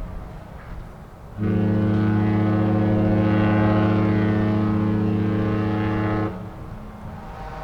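The Disney Treasure cruise ship's horn sounding one long, steady, deep blast of about five seconds, starting about a second and a half in and cutting off about a second before the end.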